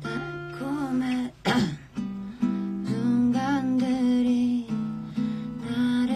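Acoustic guitar music with a slow sung melody held over it in long notes.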